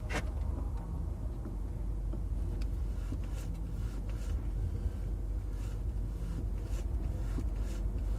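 Car engine idling with a steady low hum while the clutch pedal is worked, giving only faint clicks and no squeak. The clutch cable's plastic end tip has been greased where it meets the clutch fork, which cured the squeak.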